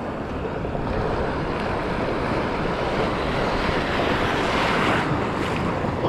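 Sea surf washing against shore rocks, with wind buffeting the microphone; the wash swells louder about four to five seconds in.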